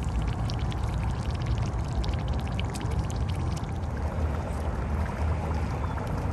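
Air bubbling up through a gravel path under shallow floodwater, forced out of the waterlogged ground: gurgling with many small pops, thickest in the first few seconds, over a steady low rumble.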